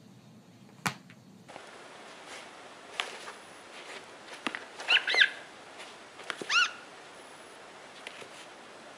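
Short high squeaks from a cat game on a tablet, the on-screen mouse squeaking as cats paw at it, with light taps and knocks of paws on the tablet in between. The squeaks come in two quick clusters, the second about a second and a half after the first.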